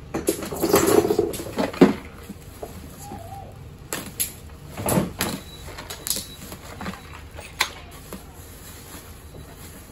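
Bubble wrap and plastic sheeting rustling and crinkling as hands handle and pull it open, in irregular bursts, loudest in the first two seconds.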